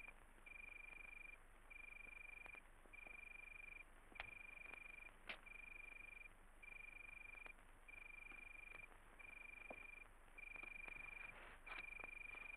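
Faint cricket song: one high, steady-pitched trill of nearly a second, repeating about every second. A few soft clicks and knocks sound over it.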